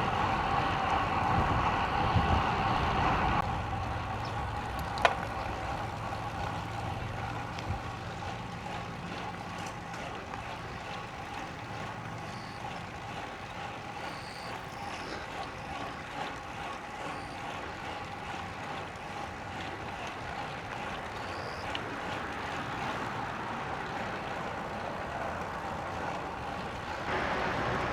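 Steady wind and road noise from riding a road bicycle. It is louder with a motor vehicle's drone for the first three seconds or so, then settles to a quieter, even rush. There is a single sharp click about five seconds in.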